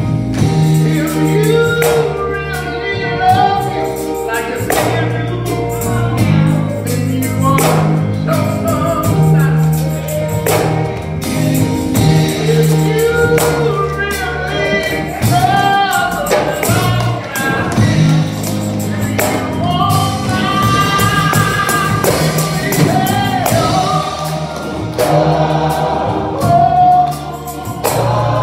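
Gospel singing by several voices with keyboard accompaniment, carried by sustained bass notes and punctuated by frequent sharp percussive hits.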